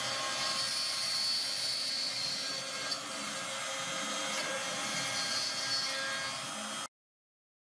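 CNC milling machine's spindle running while its end mill profiles a clear plastic plate, a steady high-pitched cutting noise with a few brief ticks. It cuts off abruptly near the end.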